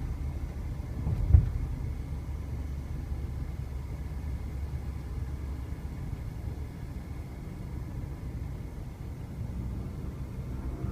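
Low, steady rumble of a vehicle driving, engine and tyre noise heard from inside the cab, with a single sharp thump about a second in.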